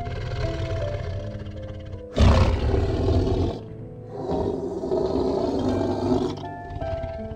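A tiger roaring twice over soft background music: a loud roar that starts abruptly about two seconds in and lasts over a second, then a longer, quieter one a second later.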